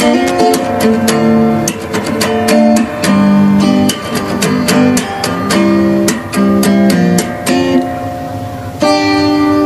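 Background music of acoustic guitar, plucked and strummed in a steady run of notes and chords.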